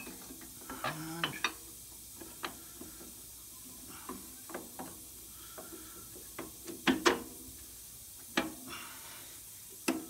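Steel U-bolts clinking and knocking against the leaf-spring plate and rear axle tube as they are slid into place by hand: irregular metallic clicks, with two sharper knocks about seven seconds in.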